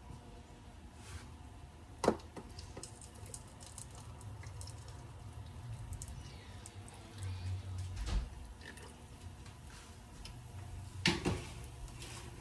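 Pan juices from a tray of oven-baked chicken being poured off into a bowl, with a sharp clank about two seconds in and more clattering of the pan and tongs near the end.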